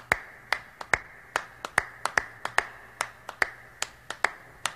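Finger snaps keeping a steady beat, about two and a half a second, a few of them doubled, over faint hiss: the unaccompanied snapping intro of a recorded song, just before the vocals come in.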